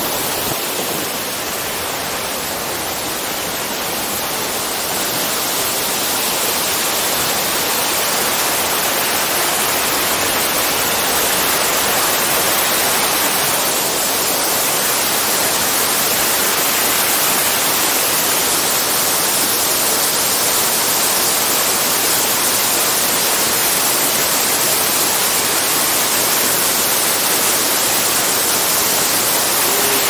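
Waterfall and the cascading creek below it rushing steadily, an even hiss of falling water that grows a little louder over the first ten seconds or so.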